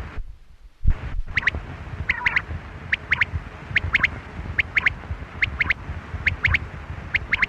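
Quail calling: short, sharp notes in quick pairs and triples, repeated about once a second over a low rumble. The calls cut out briefly near the start.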